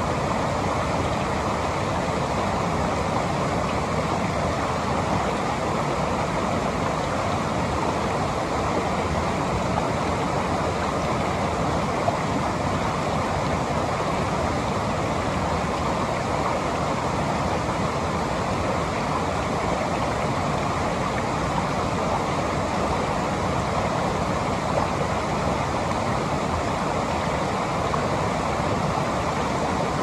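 River water rushing steadily over a waterfall, an even, unbroken roar of flowing and falling water.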